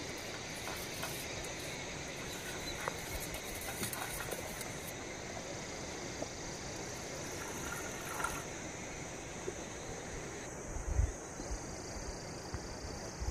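A spoon stirring and clinking in a steel cup, then milk poured into an aluminium camping pot, over a steady background hiss. A few soft knocks near the end.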